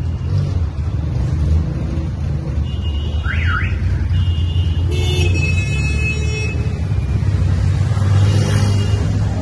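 A car engine running with a steady low rumble. A short zigzagging chirp comes about three seconds in, and a high, buzzy electronic tone sounds for about a second and a half a little after halfway.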